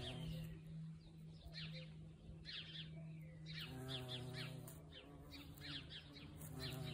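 Violet carpenter bee buzzing with a low, steady hum, while birds chirp repeatedly in short, quick, falling notes.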